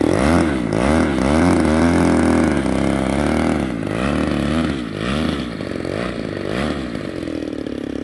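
Single-cylinder two-stroke DLE 20cc gas engine of an RC model plane running on the ground, its pitch swinging up and down again and again. It grows quieter toward the end as the plane taxis away.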